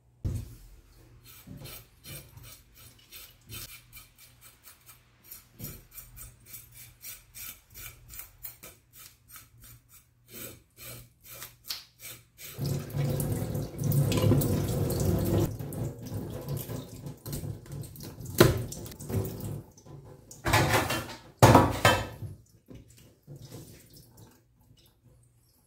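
A kitchen knife scraping scales off a barracuda on a plastic cutting board, in quick repeated strokes of two or three a second. About halfway through, a tap runs into a stainless-steel sink, with a few louder splashes and knocks as the fish is rinsed and handled.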